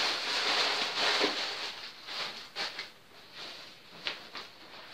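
Cloth and a small bag of clothes rustling as they are handled and pushed into a backpack. The rustle is steady for about the first second, then turns into softer, scattered rustles and light knocks.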